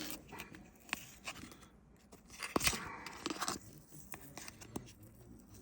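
Thick cardboard trading card being cut and torn apart by hand to free the jersey patch inside: irregular crackling and scraping, with one sharp snap about two and a half seconds in.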